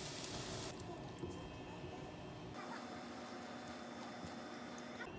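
Sauce squeezed from a pouch into a frying pan and simmering with the meat and onion, a soft liquid cooking sound. The sound changes abruptly twice, about a second in and halfway through.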